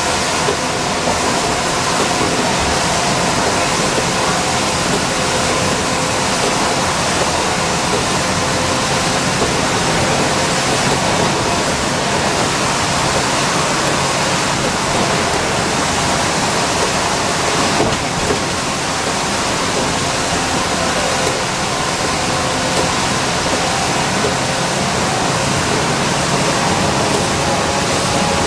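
Steady rushing noise inside an Orion V transit bus cruising at highway speed in the rain: tyres on the wet road and the running engine, with a few faint steady tones underneath.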